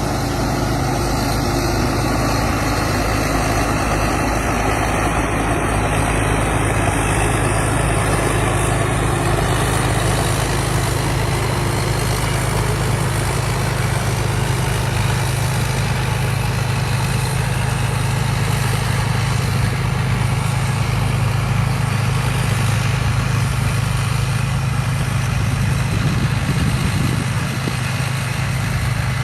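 TAMCO combine harvester's diesel engine running steadily, a constant low hum with machinery noise above it.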